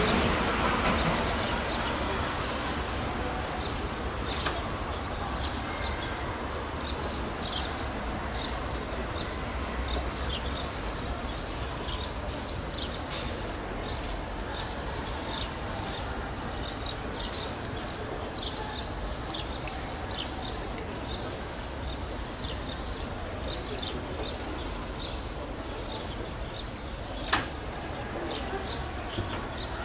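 Small birds chirping steadily over a low, steady rumble, with a sharp click near the end.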